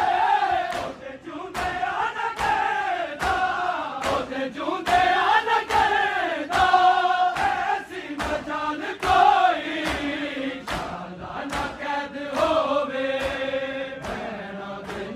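A group of men chanting a Punjabi noha, a Muharram lament, together in a slow, wavering melody. Sharp beats fall a little more than once a second under the singing.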